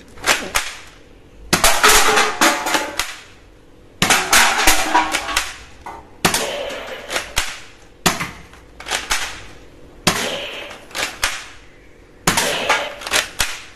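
Belt-fed toy machine gun firing in short rapid bursts: about seven rattling runs of quick clicks, each about a second long, coming roughly every two seconds.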